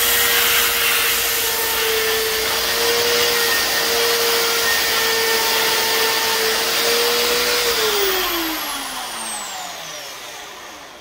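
Electric drill clamped in a vise spinning a sanding disc, with a wooden knife handle pressed against it: a steady motor hum under a dense sanding hiss. About eight seconds in the motor is switched off and its pitch falls as the disc winds down and fades out.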